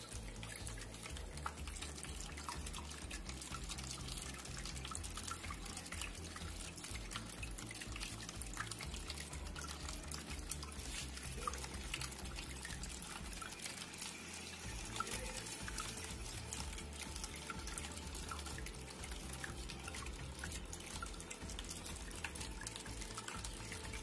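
Water from a small cement tabletop fountain trickling and splashing steadily as thin streams fall from its spouts into the bowls below, with many small droplet splashes.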